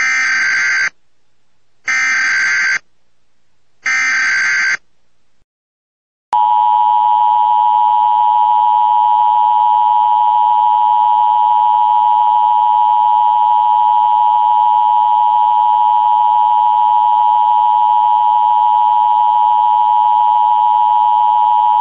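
Emergency Alert System alert tones. First come three short bursts of the SAME digital header, a harsh screeching data tone, about two seconds apart. About six seconds in, the EAS two-tone attention signal starts and holds steady and loud.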